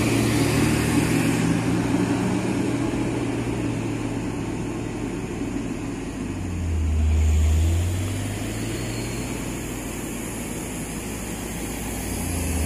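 Heavy cargo truck's diesel engine running under load as the truck pulls away, its sound slowly fading. About seven seconds in a deeper engine note swells briefly, then the engine sound rises slightly again near the end.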